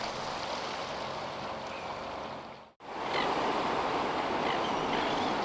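Ocean surf washing ashore, a steady hiss of waves. It cuts out abruptly a little past halfway and comes back slightly louder.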